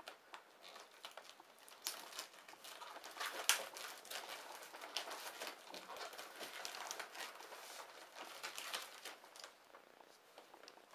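Brown paper parcel wrapping and a clear plastic packing sleeve being torn and handled: an uneven run of crinkling, crackling rustles, the sharpest crackle about three and a half seconds in.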